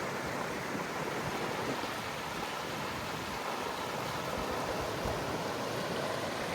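Rushing water: the steady, unbroken rush of fast-flowing mountain water.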